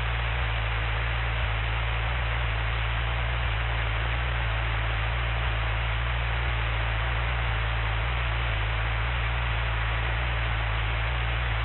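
Steady low hum under a hiss of static from the cockpit audio recording, unchanging throughout with no voices on it.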